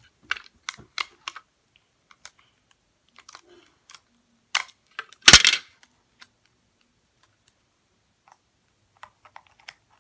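Paper crafting materials handled close to the microphone: a quick run of light clicks and taps, then a loud short crackle of paper about five seconds in, and scattered faint ticks near the end.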